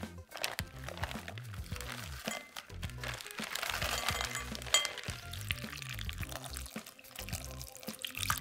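Frozen raspberries tumbling out of a plastic bag into a glass bowl with light clicks and rustling around the middle, then liquid raspberry jelly poured over them near the end, all over background music.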